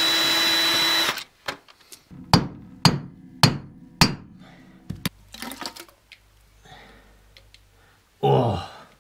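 A power tool, drill-like, runs steadily on the Dana 30 differential cover bolts and stops about a second in. It is followed by four sharp knocks about half a second apart as the cover is worked loose, then lighter clinks and a brief louder noise near the end.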